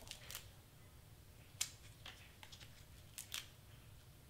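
Faint, scattered sharp clicks and snips of foam mount tape being cut and pressed onto small cardstock pieces.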